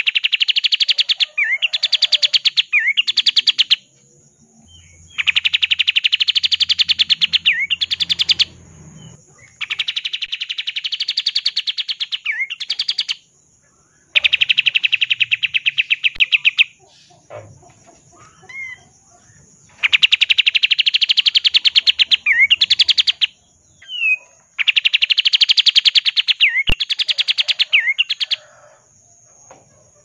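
Olive-winged bulbul (kapas tembak) singing its rapid-fire song: fast runs of quickly repeated notes, each lasting two to four seconds and often ending in a few short rising whistles, given about six times with short pauses between.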